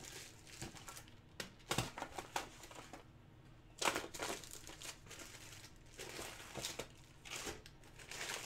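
Foil wrapper of a trading-card pack crinkling as it is handled and pressed on the table, in irregular crackles, the loudest about four seconds in.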